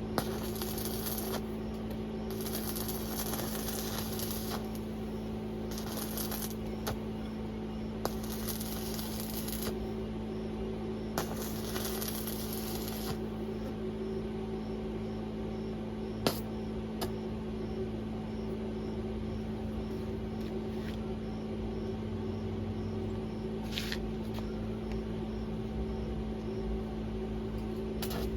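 Electric arc welding: five short runs of sizzling, crackling arc in the first half, each about one to two seconds long, over a steady electrical hum, with a few sharp clicks later on.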